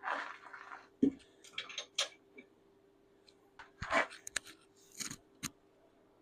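Short, irregular bursts of a hand tool scraping and clicking on metal, over a faint steady hum.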